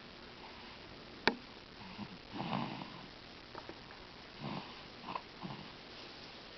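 Faint snoring: slow, noisy sleeping breaths a couple of seconds apart, with a few short snorts. One sharp click about a second in is louder than the snoring.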